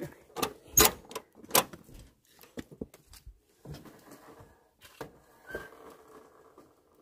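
Door lock and latch of a mountain bivouac hut being worked: a few sharp clicks and clacks, then a longer rattling scrape as the door is opened.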